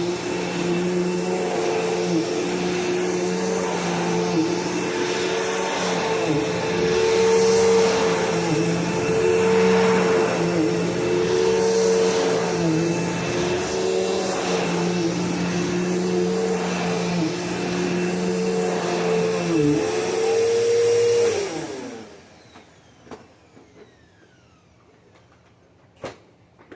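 Bissell PowerForce Bagless Turbo 6596 upright vacuum cleaner running with a steady motor hum whose pitch dips briefly now and then. About 21 seconds in it is switched off and the motor winds down.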